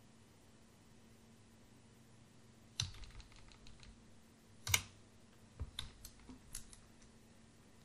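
A few scattered computer keystrokes after a quiet start. There is a sharp key press about three seconds in, the loudest press a couple of seconds later, then a quick run of lighter taps.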